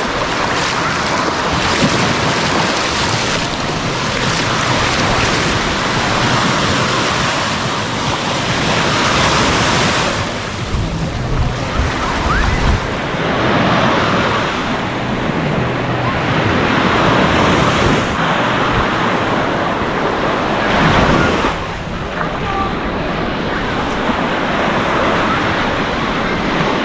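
Waves breaking and washing up a sandy beach, the surf swelling and falling back every few seconds, with wind on the microphone.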